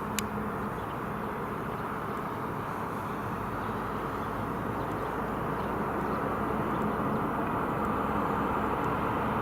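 Bombardier Dash 8-402 (Q400) on approach, the rumble of its two Pratt & Whitney PW150A turboprops slowly growing louder as it nears. One sharp click just after the start.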